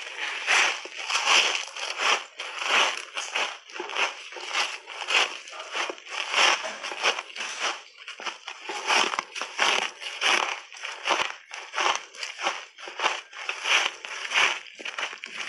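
Crunchy purple shaved ice coated in matcha powder being bitten and chewed in big mouthfuls, one crunch after another at roughly one to two a second.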